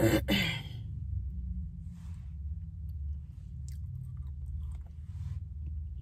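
A person chewing a spoonful of Blizzard soft-serve with frozen cookie chunks in it, starting with a louder bite as the spoonful goes in, then quieter chewing over a steady low hum.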